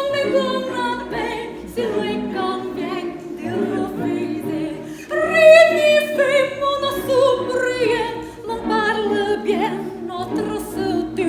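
Soprano singing an operatic melody in full voice with a wide vibrato, the line rising and falling across long held notes.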